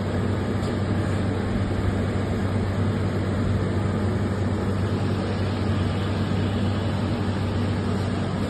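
Robotic laser welding machinery running: a steady electrical hum over an even mechanical noise, with no breaks or distinct strikes.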